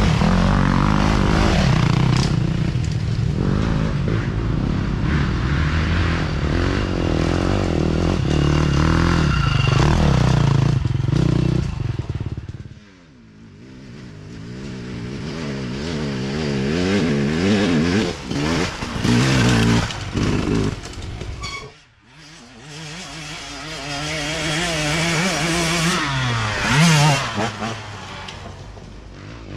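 Dirt bikes racing past one after another, their engines revving hard, the pitch rising and falling with throttle and gear changes. The sound dips briefly about 13 and 22 seconds in, and swells again as the next bike comes near.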